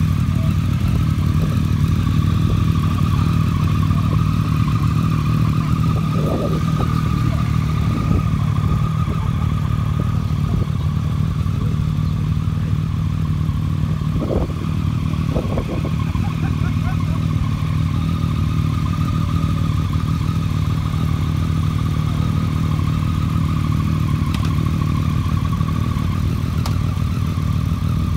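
Several motorcycle engines idling together: a steady low drone of running engines with no clear revving.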